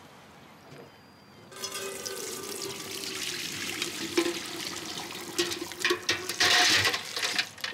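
Shellfish broth with fried Norway lobster shells poured from a pot through a metal strainer into a stainless steel pot: liquid pouring and splashing. It starts about a second and a half in and is loudest near the end.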